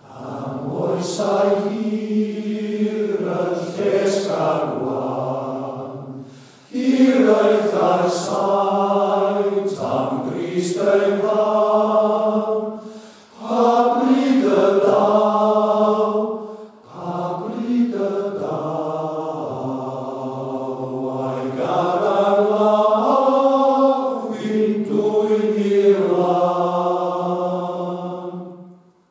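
Unaccompanied men's choir singing a Welsh plygain carol in harmony, in long held phrases with brief pauses for breath between them.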